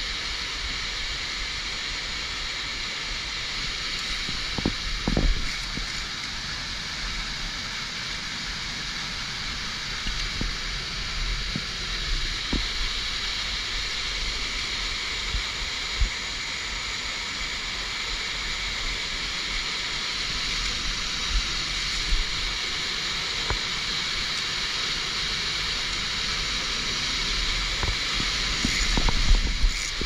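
Roaring waterfall close by: a steady rush of falling water. A few short knocks and clicks stand out, the loudest about five seconds in, about sixteen seconds in and near the end.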